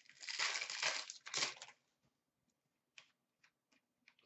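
A hockey card pack's wrapper being torn open and crinkled for about a second and a half, followed by a few faint ticks as the cards are handled.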